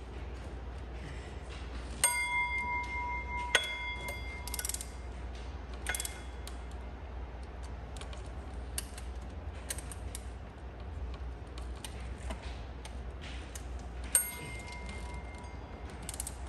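Metal hand tools working on the water pump bolts of a GM 5.3 V8: a run of small ticks and clicks, with a few sharp metal clinks that ring on. The loudest is about two seconds in, another comes a second and a half later, and one more near the end, over a steady low hum.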